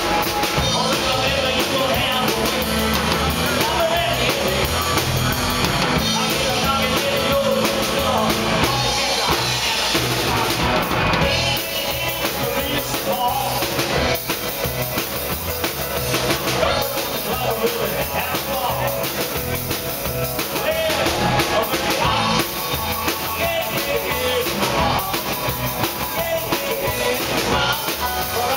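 Live rock and roll band playing: a man singing over electric guitar, bass and a drum kit.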